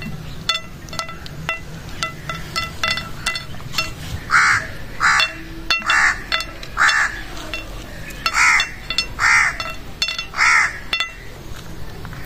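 A crow cawing, about seven caws in a row starting about four seconds in, over small sharp clicks of nuts being dropped onto a ceramic plate.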